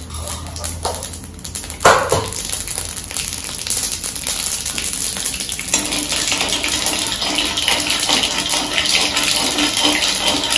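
Mustard seeds spluttering in hot oil and ghee in a wok: a dense crackling sizzle of many small pops that builds from about two seconds in and keeps going, with a sharp click just before it starts.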